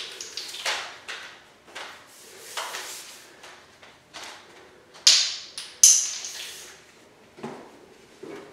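Plastic clicks, knocks and scrapes from handling 8-foot LED tube lights and their end covers, with two sharp clacks about five and six seconds in.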